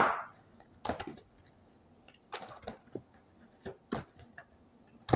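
Oracle cards being handled and drawn from the deck: a series of short taps and clicks, the loudest at the very start and another near the end.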